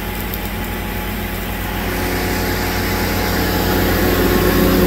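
Lincoln 305D engine-driven welder's diesel engine running steadily at an even speed, growing louder in the second half.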